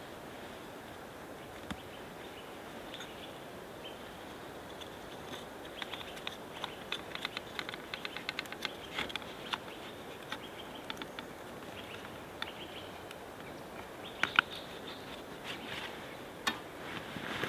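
Small wooden clicks, knocks and scratches as a wooden frame saw's sticks and tensioning cord are fitted together by hand. A quick run of clicks comes about midway and a couple of sharper clicks near the end, over a steady background hiss.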